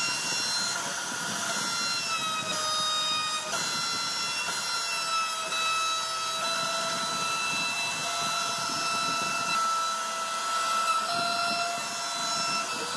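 CNC router spindle whining steadily as its round-nose bit mills grooves into a wooden board, over a constant hiss of cutting. The whine dips and rises slightly in pitch a few times as the load on the bit changes.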